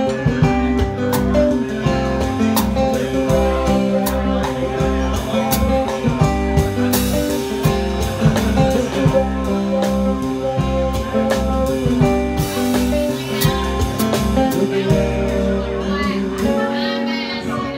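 Live acoustic guitar and drum kit playing together: strummed and picked acoustic guitar over drums and cymbals struck with sticks, with frequent sharp cymbal and drum hits.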